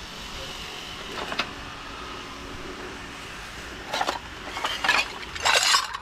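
Steady background hum, then a few clattering knocks and rattles from about four seconds in, as objects are handled and moved.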